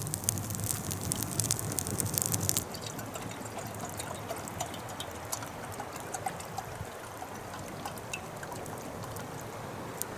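Water pouring for about two and a half seconds, then stopping suddenly. After it, scattered small crackles continue over a quiet hiss.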